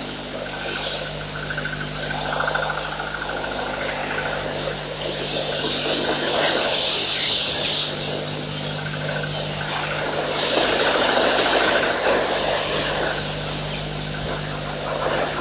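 Noisy outdoor webcam sound: a steady electrical hum and hiss with swelling rustling noise, and two brief pairs of short high chirps about five and twelve seconds in.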